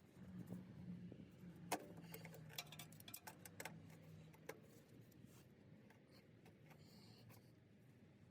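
Near silence, with a few faint, sharp clicks in the first half and a faint low hum.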